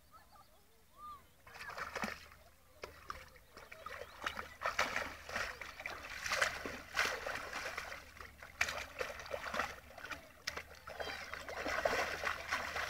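A dog splashing in shallow water, pawing and slapping at the surface with its front paws in quick, uneven strokes. The splashing starts about a second and a half in.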